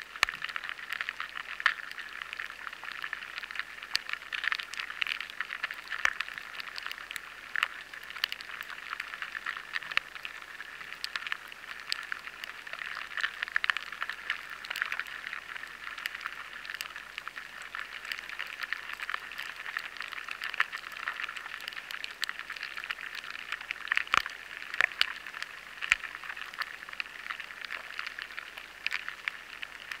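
Lesser grain borers (Rhyzopertha dominica), adults and larvae, feeding inside barley grains, picked up by a high-sensitivity vibration recording: a dense, irregular crackle of tiny clicks over a steady hiss.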